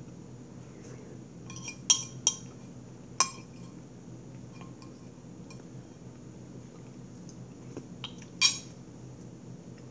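Metal spoon clinking against a ceramic plate while scooping food: two sharp ringing clinks about two seconds in, another a second later, and one more near the end.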